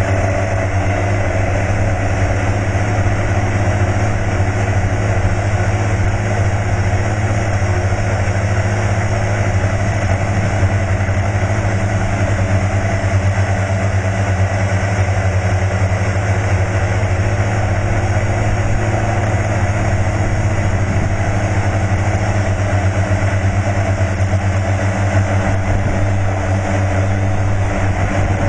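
Motor and rotor of a T580 single-rotor RC model aircraft, heard through its onboard camera in flight: a loud, steady, unchanging drone with a strong low hum.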